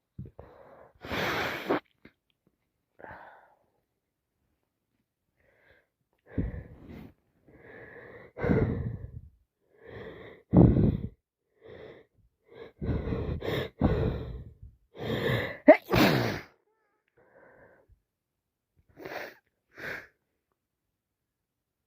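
A person with a heavy cold sneezing repeatedly, with wet sniffs and wheezy, gasping breaths between the sneezes; about a dozen separate bursts with short silences between, the loudest about two-thirds of the way through.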